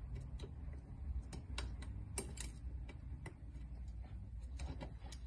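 Faint, irregular light clicks and ticks of steel spokes knocking against one another and the hub as a bicycle wheel is laced by hand, over a low steady hum.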